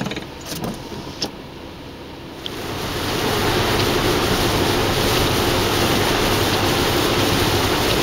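Heard from inside a car in heavy rain: a quiet hiss with a few light clicks, then, about two and a half seconds in, a loud steady rush of rain and tyres on a wet freeway.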